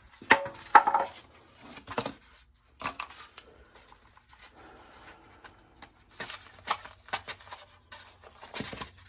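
Cardboard box and paper packing rustling and crinkling as a new furnace blower motor is unpacked and handled, with scattered light knocks and clicks.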